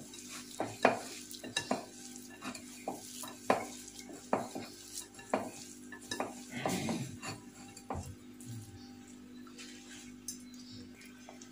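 Hands mixing seasoned rice in a plastic bowl: irregular light knocks and rustling as fingers push the rice against the bowl, thinning out near the end.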